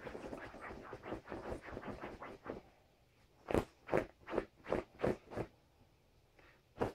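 Border collie puppy's paws scratching and scrabbling at a fabric duvet as it digs: a quick run of scrapes, a short pause, then about five separate strokes and one more near the end.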